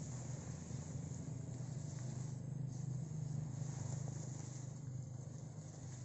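Steady low hum of a distant engine over faint open-air ambience.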